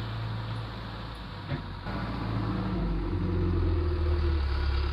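John Deere 310SE backhoe loader's diesel engine running under load as the front bucket pushes crushed concrete, getting louder as the machine comes closer. A short knock about a second and a half in.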